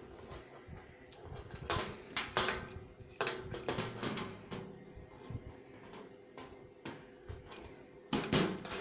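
Small metal clicks and clinks from a pocket multitool being handled, its metal tools knocking together at irregular moments, with a faint steady hum underneath.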